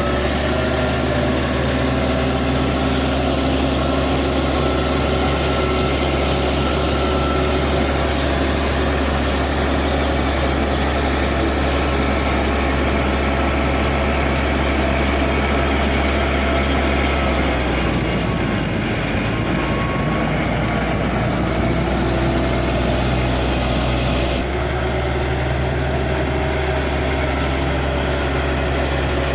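Caterpillar D6G bulldozer's diesel engine running steadily. Its pitch dips and wavers about two-thirds of the way through, then the sound changes abruptly a few seconds later.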